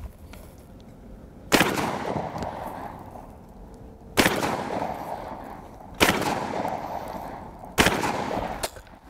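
Four 12-gauge slug shots from an AR-15-style shotgun, spaced about two seconds apart, each a sharp report followed by a long echo trailing off.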